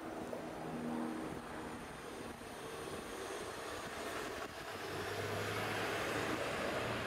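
City street traffic: a steady hum of passing vehicles, with a low engine drone coming in about five seconds in.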